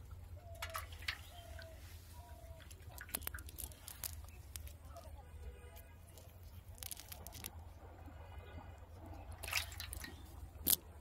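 Hands working through a wet cast net on grass, making soft rustles and scattered small clicks, with a sharper click near the end. A steady low hum runs underneath.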